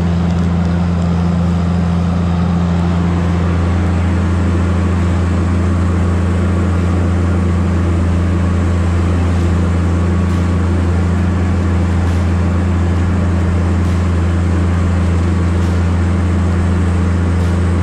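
Diesel engine of a Tigercat 718E wheeled feller buncher running steadily under load as the machine drives through deep flood water: an even, deep drone.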